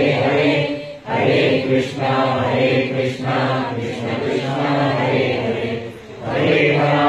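A group of voices chanting a Hindu devotional mantra in long sung phrases, with short breaks about a second in and again about six seconds in.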